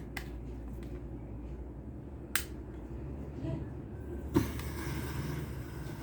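Cotton candy machine being started up for a heating test: a few sharp clicks, then about four seconds in a steady rushing run begins with a thump.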